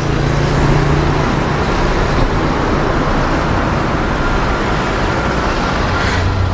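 Motor vehicle engine running with a low hum under a steady rushing noise; the hum drops lower near the end.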